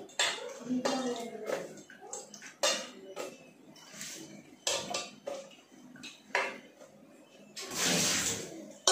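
Stainless steel bowl and pressure cooker pot clinking and knocking as washed, cut vegetable pieces are handled and tipped into the cooker, with about a second of rushing, splashing water near the end.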